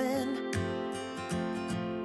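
Background song: strummed acoustic guitar with held chords, the singer's line trailing off just after the start.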